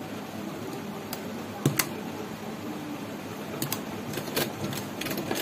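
Sewing machine stitching slowly through fabric: a couple of sharp clicks about a second and a half in, then a run of needle clicks that grows denser in the second half.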